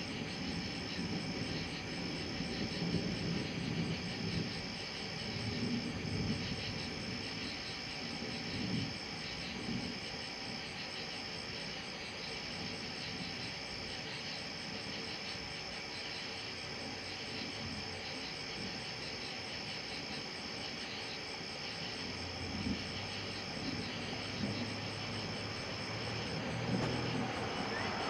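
Night insects trilling steadily in a high, continuous chorus, over an uneven low rumble that grows louder near the end.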